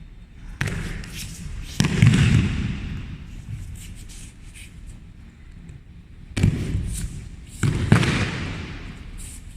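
Bodies landing on the mat in aikido breakfalls as partners are thrown: four heavy thuds in two pairs, the second of each pair about a second after the first, each trailing off briefly.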